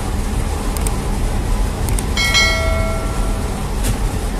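Steady low rumble of bakery machinery running. Two short clicks come about 0.8 and 2 seconds in, then a bell-like ding about two seconds in that fades over a second: the click-and-bell sound effect of a subscribe-button overlay.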